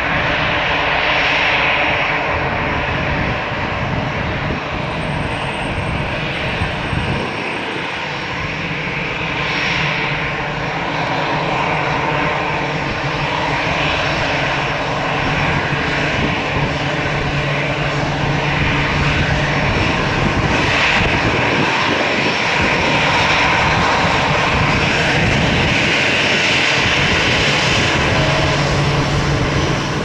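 Airbus A319 twin jet engines running at taxi power: a steady jet whine and rumble as the airliner rolls slowly past, growing a little louder near the end.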